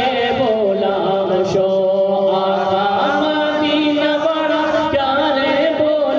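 A man singing a devotional naat into a microphone, with long held notes that waver and slide in pitch.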